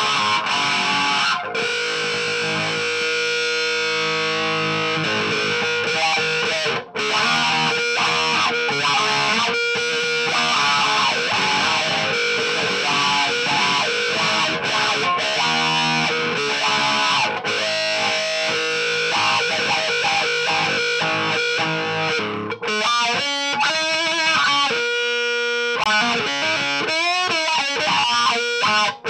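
Distorted electric guitar: a 2012 Epiphone Les Paul Standard with stock pickups and a Hosco wiring kit, played through a Marshall Origin 20 valve head into a 2x12 cabinet. Sustained overdriven notes and chords ring out, giving way to shorter, choppier picked notes about three-quarters of the way through.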